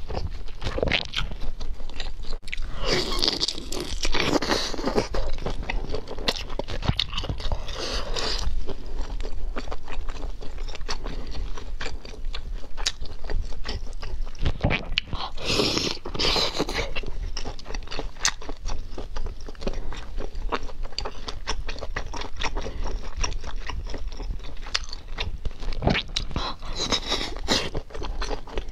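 Close-miked eating: biting and chewing with crunching and wet mouth clicks, with louder stretches of chewing several times through.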